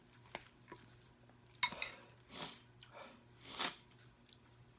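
Eating instant noodles with a metal fork from a glass bowl: chewing, a few light clicks, and one sharp ringing clink of the fork on the glass about one and a half seconds in, followed by two short slurps.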